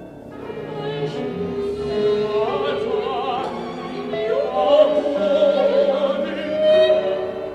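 Modern orchestral music with an operatic voice singing with wide vibrato over held orchestral notes. It swells after a quiet start and is loudest around the middle and again near the end.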